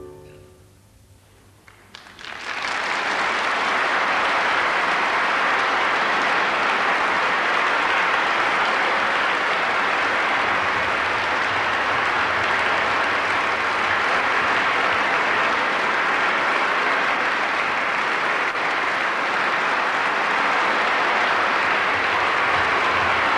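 Theatre audience applauding a ballet: after a hush of about two seconds, the clapping starts and holds steady.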